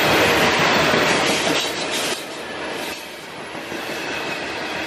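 Covered hopper cars of a CSX freight train rolling past at close range, steel wheels running on the rails in a steady loud rumble. The noise drops sharply about two seconds in and carries on more quietly.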